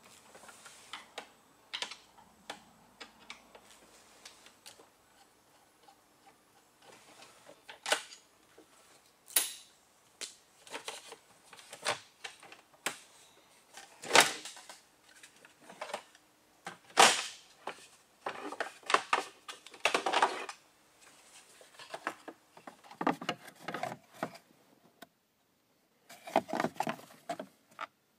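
Irregular clicks, knocks and scraping from a screwdriver and hard plastic trim being worked loose around the steering column of a 2001 Citroën Xsara. There are two sharp knocks about halfway through, then several longer stretches of scraping and rattling.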